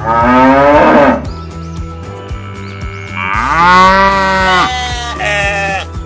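Cows mooing: one long moo at the start and another around the middle, then a shorter call near the end, over light background music.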